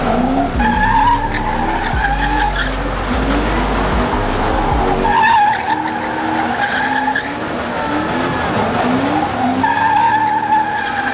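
A car doing donuts: its tires squeal in long screeches, three times, while the engine revs up again and again.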